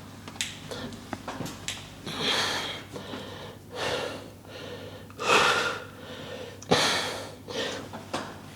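A man breathing hard, with about four heavy exhalations a couple of seconds apart and small clicks and knocks between them: breathing through the reps of a leg press warm-up set.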